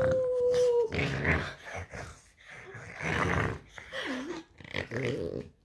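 French bulldog grumbling and growling in short rough bursts, after a long drawn-out howling call that ends about a second in.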